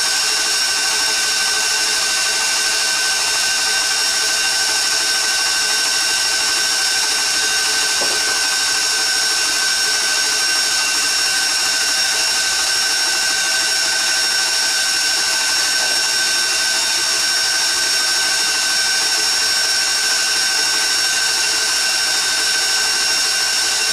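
Electric stand mixer running steadily as it mixes whole wheat bread dough. Its motor gives a constant whine of a few fixed pitches over a steady hiss, unchanging throughout.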